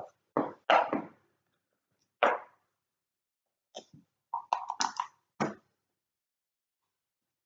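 Short clacks of backgammon checkers and dice against the board as pieces are moved and the dice picked up: two near the start, one about two seconds in, then a quick cluster between about four and five and a half seconds.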